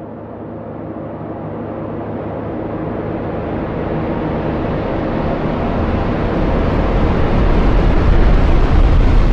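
Cinematic riser sound effect: a dense rumbling, hissing swell that grows steadily louder and brighter, building tension toward a hit.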